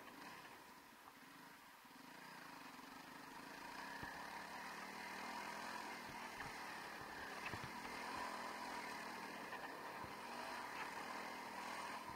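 Honda CRF300L Rally's single-cylinder engine running while riding. It gets louder about two seconds in, with a few short low thumps.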